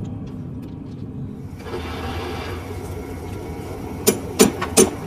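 Lathe running with a steady hum; a hiss joins about one and a half seconds in, and three sharp knocks come near the end, each about a third of a second apart.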